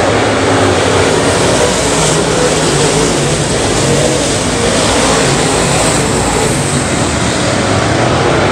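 Several topless dirt late model race cars running together around a dirt oval, their V8 engines making loud, steady engine noise that blends into one sound.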